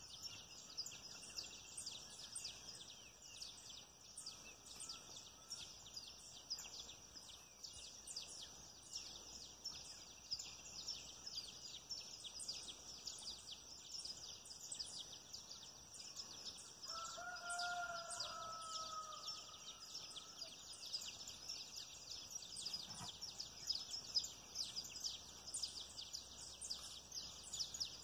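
Dense, steady chorus of rapid high-pitched chirping from evening insects and birds. A single longer call with a slightly falling tone rises over it for a couple of seconds past the middle.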